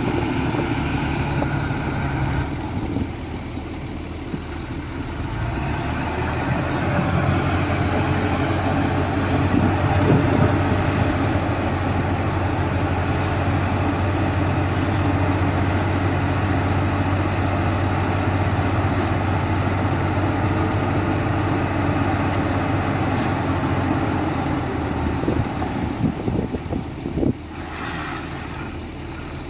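Heavy diesel engine running steadily, its note dropping and picking up again a few seconds in, with a few short knocks near the end.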